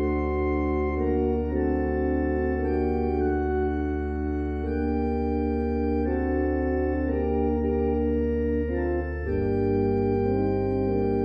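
Organ music: slow, sustained chords over a held low bass note, the bass moving to a new note about nine seconds in.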